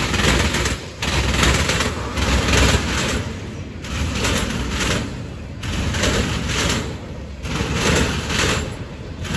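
Freight train of tank cars and autorack cars rolling past, its steel wheels clattering on the rails in a dense rapid rattle that swells and dips about once a second as the cars go by.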